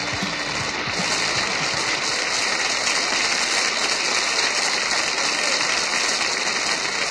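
Studio audience applauding steadily as the song's music ends within the first moment.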